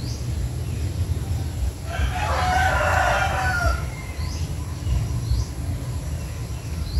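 A rooster crowing once, one long call of about two seconds starting about two seconds in. Short high chirps of small birds come before and after it.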